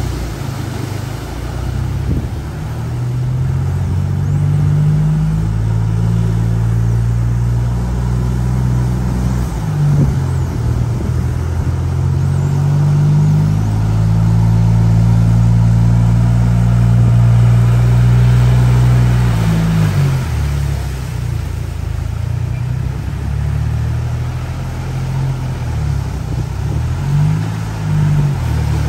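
Engines of 4x4 SUVs and a tractor labouring through deep mud, revving up and dropping back several times, with mud splashing from the wheels. The engine note is loudest and steadiest in the middle, then changes pitch repeatedly toward the end.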